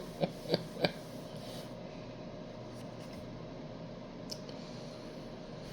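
Light handling of a cardboard product box: four quick sharp clicks in the first second, then faint room tone with one more click about four seconds in.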